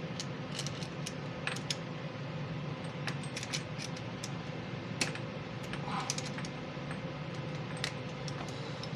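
Light metallic clicks and clinks at irregular intervals over a steady low hum, from handling a metal hose repair fitting and tools.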